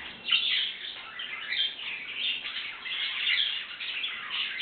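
Pet canaries and other small cage birds chirping and calling, many short chirps overlapping without a break.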